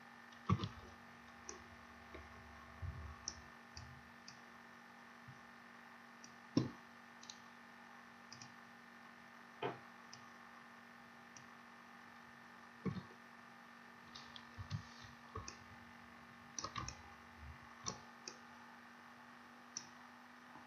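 Computer mouse clicking: faint, short, sharp clicks at irregular intervals, some in quick pairs, over a faint steady electrical hum.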